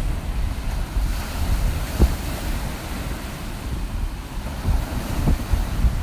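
Sea waves breaking on rocks and washing up a pebble shore, with strong wind rumbling on the microphone. There are two short thumps, about two seconds in and again near the end.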